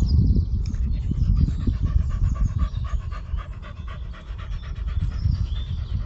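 Dog panting rapidly and rhythmically close to the microphone, about four to five breaths a second, over a heavy low rumble on the microphone.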